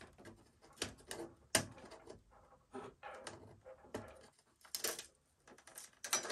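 Hands working at the cables and adhesive tape behind a desktop PC tower's motherboard tray: irregular scratches, rustles and clicks of plastic and metal, about a stroke every second.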